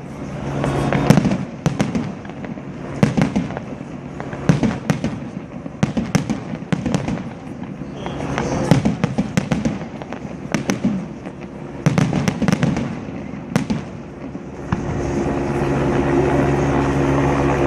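Aerial fireworks going off in quick succession: sharp bangs and crackling clusters, each trailed by a rumbling echo. About three-quarters of the way through, a steady low hum comes in under the bangs.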